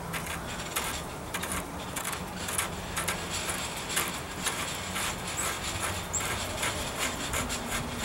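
Irregular light metallic clicks and scrapes as the factory muzzle brake of an AK pistol is turned by hand and unscrewed off the threaded barrel, its retaining detent filed down so it will turn. A faint steady low hum lies underneath.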